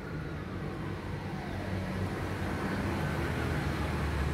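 Outdoor road traffic: a low motor-vehicle rumble that grows louder near the end as a vehicle approaches.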